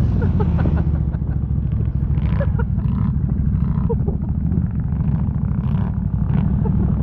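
ATV engine idling with a low, lumpy, uneven rumble just after the throttle is let off.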